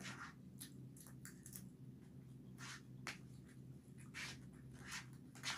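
Quiet eating sounds: a spoon and fork scraping and clicking in a plastic food tray, with chewing, in about nine short bursts over a steady low hum.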